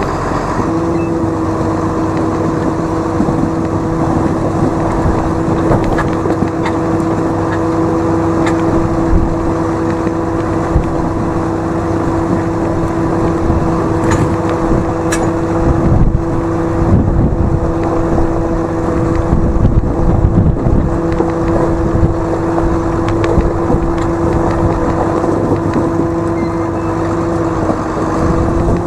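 Farm tractor engine running at a steady speed while pulling a feed wagon, with occasional knocks and rattles. The engine note rises near the end as it speeds up.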